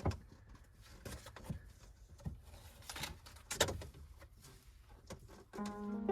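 A few scattered knocks and clicks of things being handled in a small enclosed space, over a low rumble. Background music comes in near the end.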